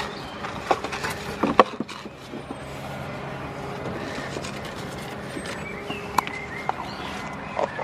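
Scattered sharp knocks and clatters at a wooden feed trough as goats feed from it and a container is handled over it, over a steady background hum.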